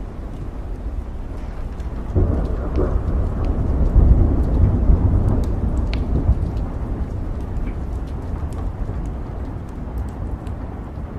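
Steady rain with scattered drop ticks, and a roll of thunder that rumbles in about two seconds in, peaks around four seconds and slowly dies away.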